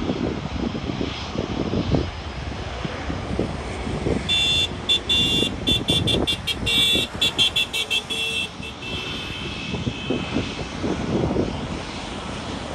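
Jet airliner on its takeoff roll at takeoff power, a steady, gusty low rumble. In the middle few seconds a high tone keeps breaking on and off rapidly over it.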